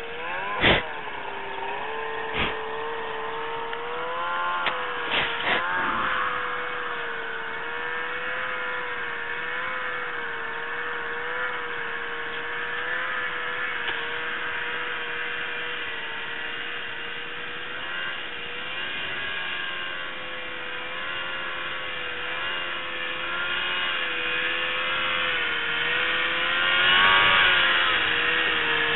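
Snowmobile engine running steadily at speed, its pitch wavering slightly as the sled rides over the snow and getting louder over the last few seconds as it comes closer. A few sharp knocks in the first six seconds, the loudest about a second in.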